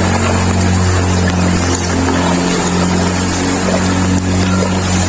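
An engine running steadily, a continuous low hum with a haze of noise over it.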